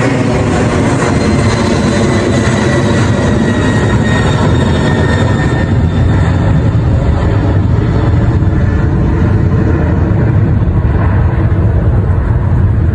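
Aircraft passing low overhead: a loud, steady engine roar, with a high whine that fades over the first few seconds.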